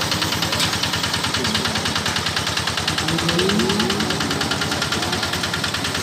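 Single-cylinder Kubota diesel engine of a mini combine harvester running steadily, with an even, rapid beat of firing strokes.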